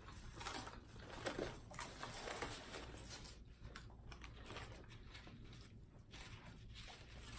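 Faint eating sounds: scattered small clicks and soft rustles, a couple slightly louder about half a second and a second and a half in.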